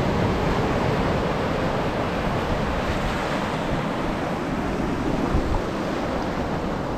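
Small waves breaking and washing over sand and rocks in a steady rush, with wind buffeting the microphone.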